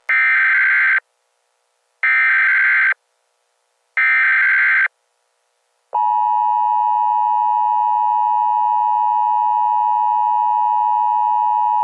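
Emergency Alert System tones. First come three one-second bursts of the SAME header's data warble, a second apart. About six seconds in, the steady two-tone EAS attention signal starts and holds.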